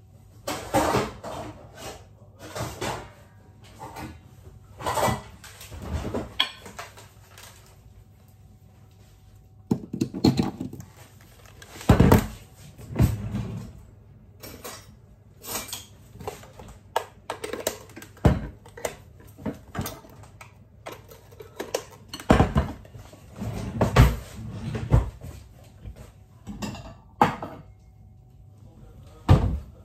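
Kitchen dishes and utensils clattering and knocking at irregular intervals, with several sharper knocks standing out.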